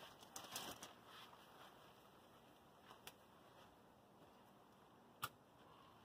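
Faint crinkling of plastic house wrap being unrolled and handled against a wall, a few light ticks, then a single sharp click about five seconds in; otherwise very quiet.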